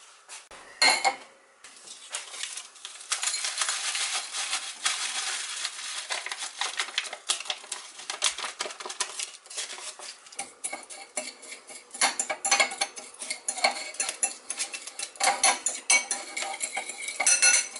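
A paper seasoning-mix packet being torn open and its contents emptied into a ceramic bowl, with dense rustling, clicks and scrapes against the bowl that grow busier in the second half.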